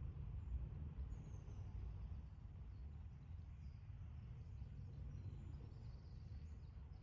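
Faint outdoor ambience: small birds chirping and twittering in short high calls over a steady low rumble.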